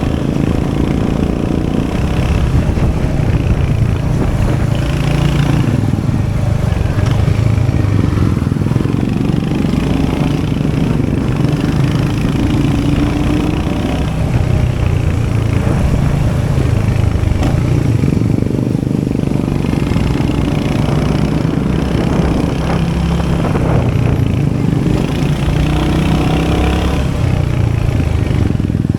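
Royal Enfield Hunter 350's 349cc single-cylinder J-series engine running, its note rising and falling.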